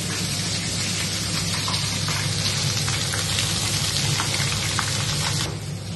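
Hot oil in a kadai sizzling and crackling hard as garlic paste and turmeric fry in it. The sizzle drops away sharply near the end.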